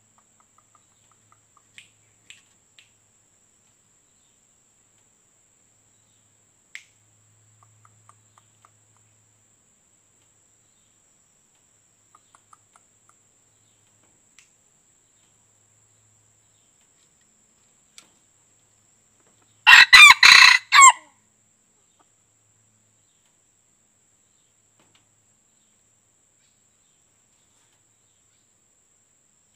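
A white-eared red junglefowl rooster (ayam hutan kuping putih) crows once, about twenty seconds in: a short crow of about a second broken into a few syllables, played as a trapping lure call. A few faint clicks and chirps come before it.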